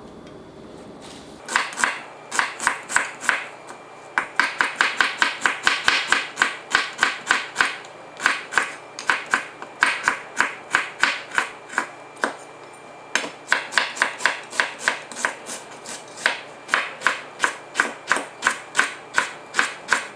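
Kitchen knife chopping on a cutting board in quick, even strokes, about four a second, in runs with short pauses: vegetables or herbs being cut up.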